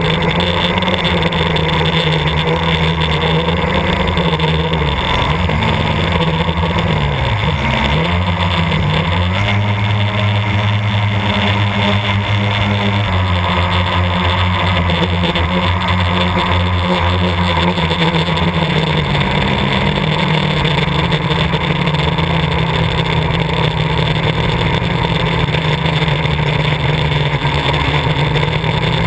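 Blade 350 QX quadcopter in flight, recorded by its onboard camera: the motors and propellers make a loud, steady buzz. The pitch wavers and shifts up and down several times as the throttle changes, then holds steady for the last third.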